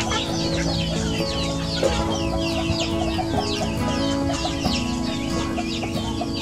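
A flock of young chickens peeping and cheeping steadily, a dense run of short, high, falling calls several times a second.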